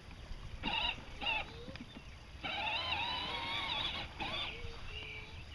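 Battery-powered John Deere toy ride-on tractor's electric motor and gearbox whining in stop-start bursts: two short spurts, then a longer run of about a second and a half, the pitch wavering as it moves over the grass.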